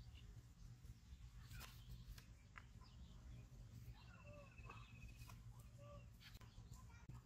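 Near silence: faint outdoor ambience with a low steady rumble, scattered light clicks, and a few faint bird chirps, including a short rapid trill about four seconds in.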